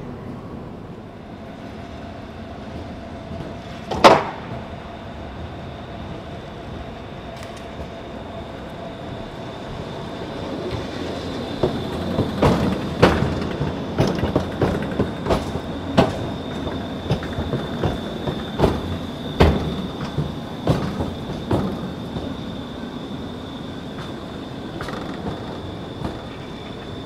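Modern articulated low-floor tram running past, its wheels clattering in a run of irregular clicks and knocks over rail joints and points for about ten seconds, with a high thin whine that comes in partway through and holds steady. A single loud clunk comes about four seconds in.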